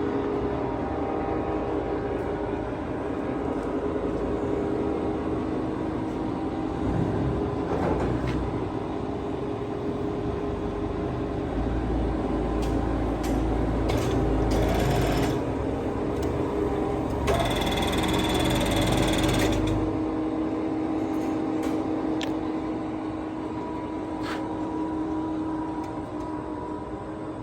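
Large engine lathe running, its spindle and geared headstock giving a steady mechanical hum with a held whine. Roughly midway, a louder, deeper rumble with rattling noise joins for several seconds, then drops away.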